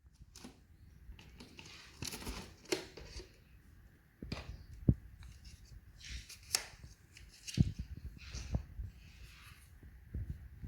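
Irregular handling noises: rustling and scraping with several sharp knocks and clicks, and no motor running.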